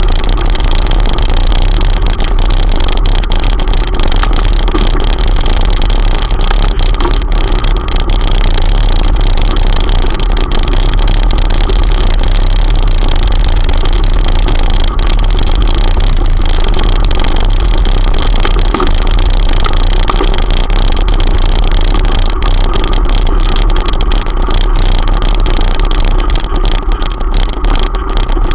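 Steady, loud rumble and rattle from a bicycle-handlebar camera shaken over a loose gravel track, with wind rumbling on the microphone.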